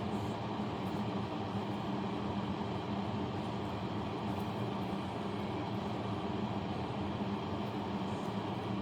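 Steady, unchanging hum of a small electric motor running.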